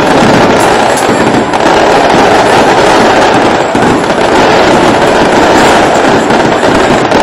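Loud, steady noise of a stadium crowd in the stands, close to the phone's microphone and near its limit.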